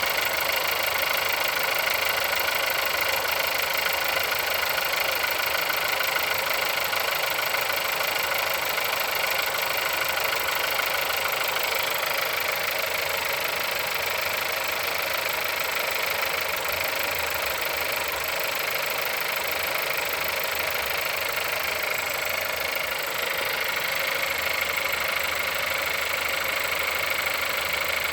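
Car engine idling steadily after a cold start, with a knock in it, at 176,000 km on the clock.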